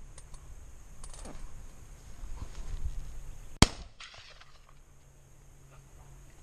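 A single shotgun shot, one sharp loud crack about three and a half seconds in, with low rustling and bumping just before it as the gun is brought up.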